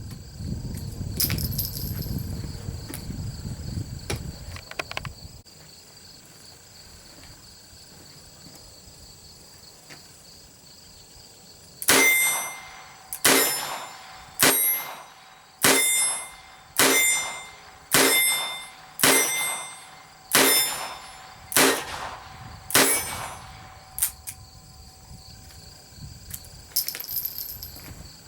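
A Ruger GP100 .22 LR revolver fired ten times at a steady pace, about one shot a second, emptying its 10-shot cylinder, with a short ringing tail after each shot. Insects chirp steadily in the background.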